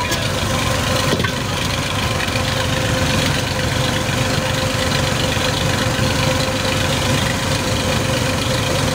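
Mustard-oil expeller machine running steadily while pressing seed: a constant mechanical drone with a steady whine.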